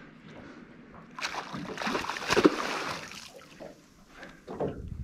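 Hooked giant trevally splashing and thrashing at the water's surface beside a small boat, a rushing splash that builds about a second in and peaks near the middle.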